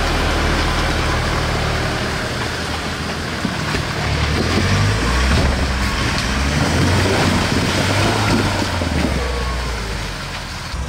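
Off-road 4x4 vehicle driving with its engine running at low revs, the engine note shifting slightly, under a steady rushing noise.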